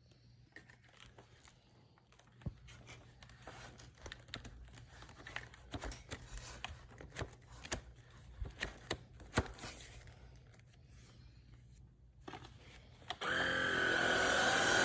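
Scattered plastic clicks and rustling from handling, then near the end a cordless stick vacuum cleaner's motor switches on abruptly and runs with a steady high whine over a rush of air.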